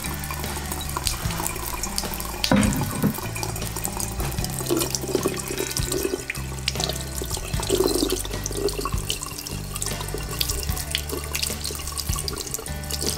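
Kitchen faucet running into a sink while small yellow perch are rinsed by hand under the stream, the water splashing off the fish and hands.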